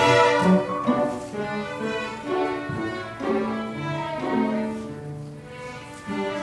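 Orchestra of bowed strings, violins over cellos, playing a sustained classical-style passage with notes that change every half second or so.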